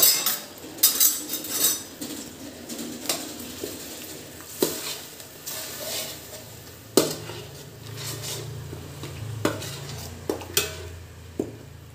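A metal spoon stirring and scraping onion, ginger, garlic and green chilli paste around a metal pot of hot ghee and oil, with repeated clinks against the pot and a light sizzle as the paste starts to fry. A low steady hum comes in about seven seconds in.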